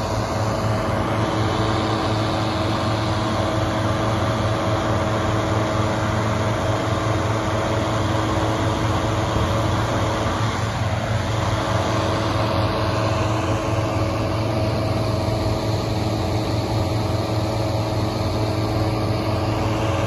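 Engine-driven inflator fan running steadily, blowing cold air into a hot air balloon envelope on the ground: a constant engine drone with a steady hum.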